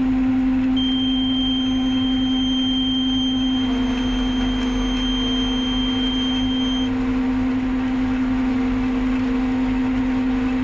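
Forage harvester cutting standing maize for silage, its engine and cutting gear running with a steady loud drone and hum. A thin steady high-pitched tone sounds from about a second in until about seven seconds in.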